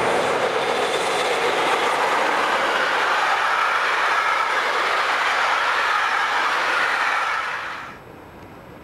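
Electric-locomotive-hauled passenger train passing close by at speed: a loud, steady rush of wheels on rails as the coaches go by, cut off suddenly near the end.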